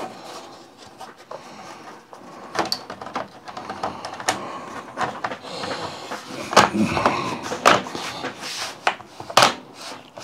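Plastic bottom cover of an Acer laptop being set back onto the chassis and pressed down by hand: a run of sharp clicks and knocks as the cover's clips snap into place, the loudest ones in the second half.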